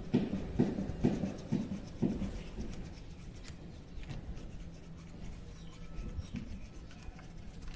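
Toothbrush scrubbing along a dog's side teeth: a series of rubbing strokes about two a second, growing fainter after about three seconds.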